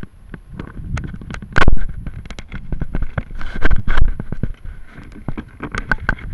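Handling noise on a small onboard camera's own microphone as it is pushed and fitted into a tight rocket body: irregular knocks, bumps and scraping. The loudest thumps come about a second and a half in and again around four seconds in.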